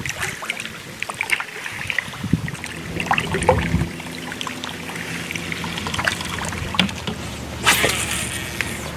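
Fishing from a kayak while a hooked fish is brought in: scattered clicks and knocks, with a steady low hum from about four seconds in. A short burst of splashing comes near the end.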